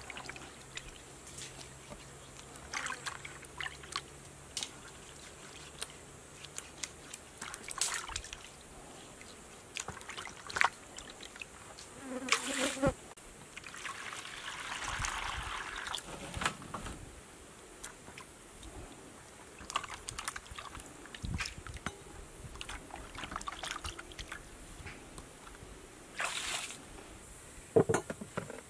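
Hands scrubbing potatoes in a plastic basin of water: scattered splashes, sloshing and knocks of the potatoes. About halfway through, water poured from a plastic jerrycan runs into the basin for about two seconds. Near the end, a sharp knock as the plastic basin of potatoes is set down on a wooden board.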